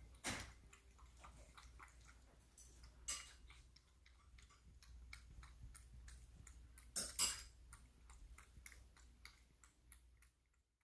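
A cat eating: faint, irregular small clicks and ticks of chewing and licking, with a few louder taps about 3 and 7 seconds in.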